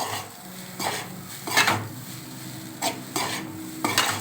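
A spoon scraping and knocking against a kadai as egg fried rice is stirred, a stroke roughly every second, with the rice sizzling in the pan underneath.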